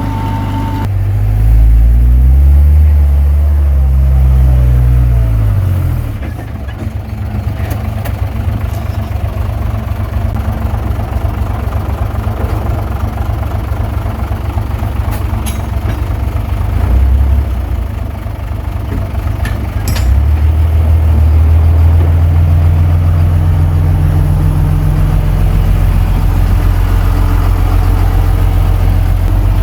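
Komatsu D21P bulldozer's diesel engine working under load, revving up about two seconds in and dropping back a few seconds later, then revving up again near two-thirds of the way through and holding there.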